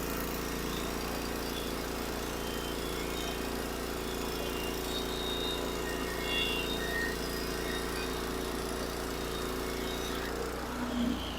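Gasoline engine of a sawmill running steadily at a constant note, which changes and drops away a little before the end.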